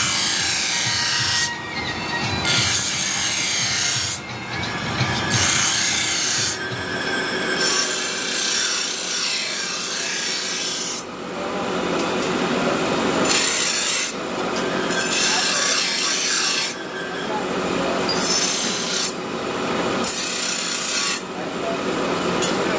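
Steel knife blade being ground on a spinning grinding wheel: a gritty, hissing scrape in repeated passes of one to a few seconds each, with short breaks between them and a faint steady hum underneath.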